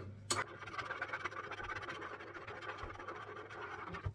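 Stirring and scraping inside a plastic mixing bowl: a steady scratchy rubbing, with a sharp knock about a third of a second in.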